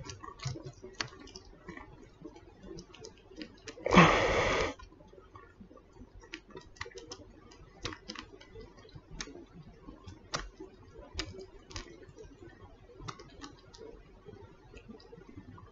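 Kitten suckling on a human earlobe close to the microphone: irregular small clicks and smacks, a few a second. About four seconds in there is a brief, louder rush of noise.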